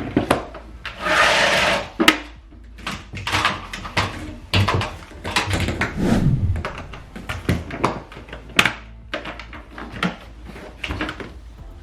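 Irregular knocks, clunks and rattles of hard objects being handled, with a short rushing hiss about a second in.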